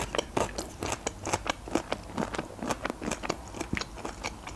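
Close-miked chewing of a mouthful of quiche with shortcrust pastry: soft, irregular crunchy clicks and wet smacks, a few a second.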